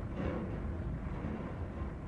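Wind blowing through forest trees: a steady low rushing rumble, with a brief swell of higher rustling hiss near the start.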